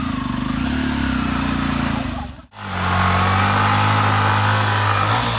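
Yamaha FZ-X motorcycle's single-cylinder engine revving during a burnout, rising and falling at first. The sound cuts out for an instant about two and a half seconds in, and then the engine is held steady at high revs.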